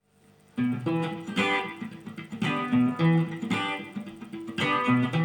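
Guitar intro: chords starting about half a second in and played with an accent roughly once a second.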